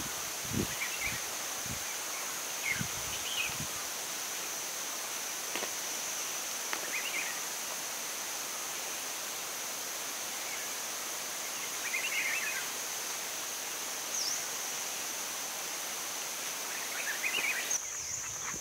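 Outdoor ambience: a steady high-pitched hum throughout, with short chirps every few seconds and a few low thumps in the first few seconds.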